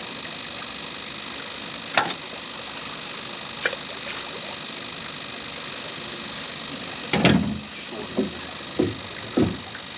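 A steady motor hum, with a couple of sharp knocks early on and a run of four or five louder thumps in the last few seconds, typical of gear being handled in a boat.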